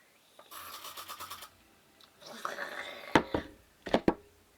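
Spray starch hissing out of its can into a glass in two bursts, followed by four sharp knocks.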